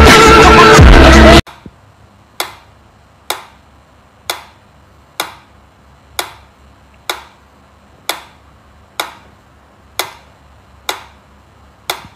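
Music that cuts off suddenly about a second and a half in, then a mechanical pendulum metronome ticking steadily, about one sharp click a second.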